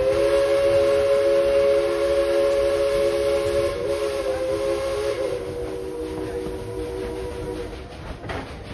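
Narrow-gauge steam locomotive #190's whistle held in one long blast, several tones sounding together as a chord, fading a little before cutting off near the end.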